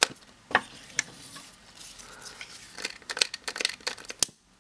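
Trigger clicks of a long-nosed utility lighter being fired at the cut end of a ribbon. A few single sharp clicks in the first second, then a quicker run of clicks from about three seconds in.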